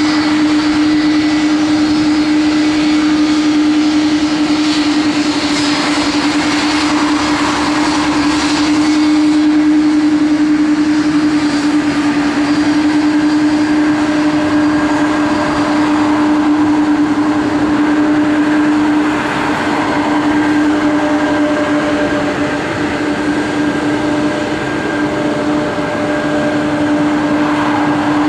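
Boeing 777-200's twin turbofan engines running at taxi power: a steady jet drone with a constant humming tone.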